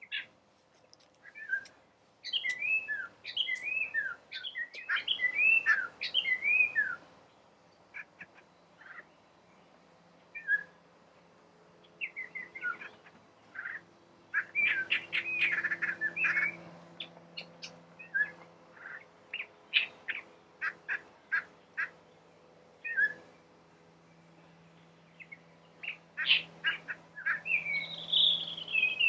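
Collared palm thrush singing: bouts of quick, varied whistled phrases separated by short pauses, with a run of short repeated notes around the middle.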